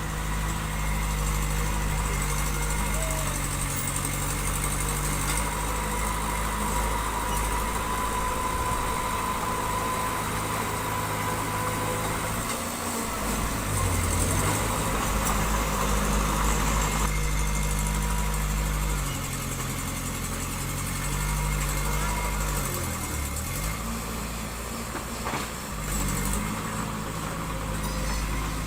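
Heavy construction machine's diesel engine running steadily, its pitch sagging and recovering twice, about 13 seconds in and again around 23 seconds, as the load comes and goes. A thin steady whine sits over it for the first half.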